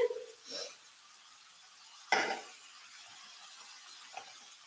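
A metal spoon scraping and knocking against a stainless-steel skillet while scooping shrimp, with one sharp clink about two seconds in. A faint steady sizzle comes from the hot pan under it.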